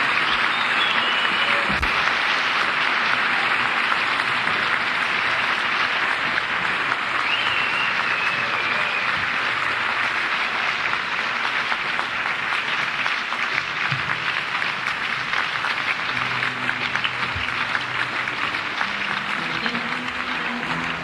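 Concert-hall audience applauding and cheering on an audience tape, with a few high whistles. Near the end, sustained low instrument notes from the band begin sounding under the applause.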